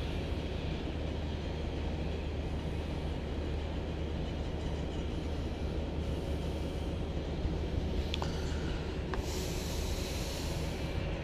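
A steady low rumble, with two faint ticks about eight and nine seconds in and a brief hiss near the end.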